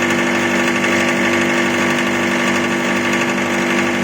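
Electric corn-cob grinding machine running at a steady speed: a constant, even hum with steady tones over a rushing noise.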